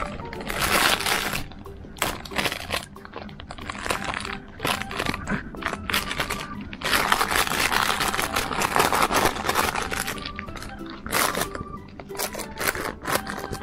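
Bursts of rustling and crinkling from a plush cookie-bag dog toy as a Chihuahua noses into it, the longest about halfway through, over light background music.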